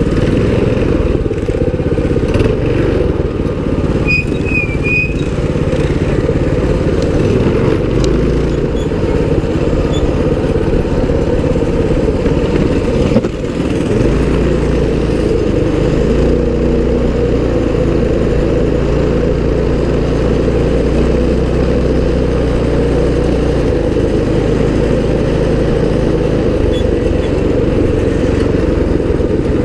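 Mini bike's small 196cc single-cylinder engine running steadily under way, with a CVT torque-converter drive. The sound dips briefly and shifts in tone near the middle.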